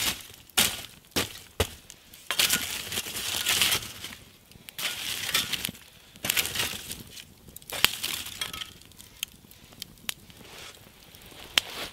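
Burning logs and embers being knocked and pushed together into a heap: sharp knocks and glassy clinks of charred wood, with stretches of crunching and crumbling as the embers shift and collapse.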